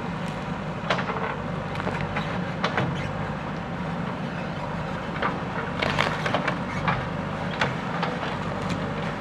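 JCB 3DX backhoe loader's diesel engine running steadily, with irregular sharp cracks and knocks, in clusters about a second in and again around the six-second mark, as the machine works through brush.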